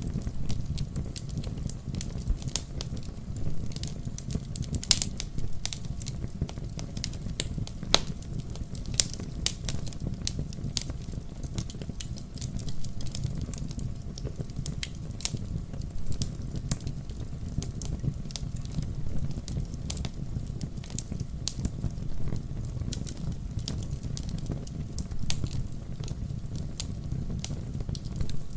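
Wood fire burning in a fireplace: a steady low rumble of flame with many irregular sharp crackles and pops from the burning wood.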